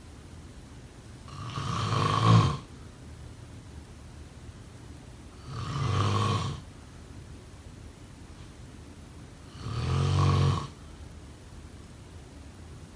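A person snoring: three loud, rasping snores about four seconds apart, each lasting about a second, with quieter breathing between them.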